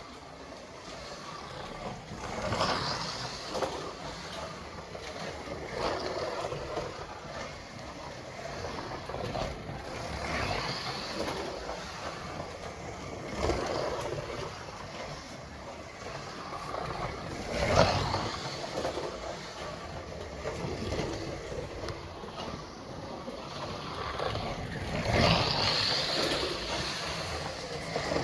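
Scalextric slot car lapping a plastic track: the small electric motor whines and the guide and tyres run along the track, the sound swelling each time the car passes close, about every three to four seconds.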